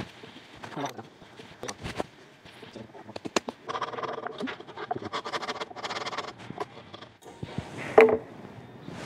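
A wooden block and a bow saw being handled at a cast-iron bench vise: scattered knocks and clatter, a few seconds of rapid rhythmic strokes in the middle, and a single sharp knock with a brief ring near the end.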